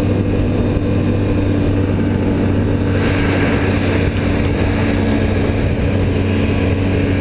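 Snowmobile engine running steadily at cruising speed, heard from on the machine just behind its windshield, with a constant hum under a hiss that turns brighter about three seconds in.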